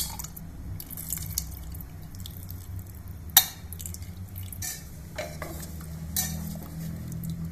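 Kitchen utensils clinking against an aluminium pressure cooker, with one sharp knock about three and a half seconds in, then a spoon stirring chickpea curry in the pot. A steady low hum runs underneath.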